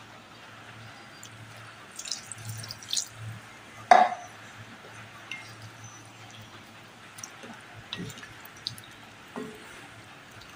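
Thick curry bubbling in a metal wok while a wooden spatula stirs it, giving scattered clicks and scrapes, with one sharp knock of the spatula against the wok about four seconds in.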